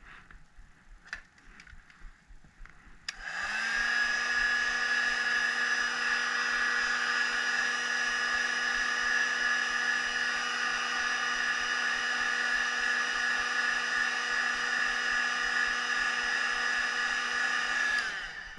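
Heat gun switched on about three seconds in, blowing with a steady motor whine and hiss, then switched off near the end; the hot air is loosening a part inside the phone so it comes out more easily.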